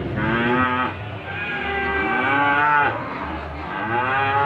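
Cattle mooing: three long moos in a row, each rising and then falling in pitch.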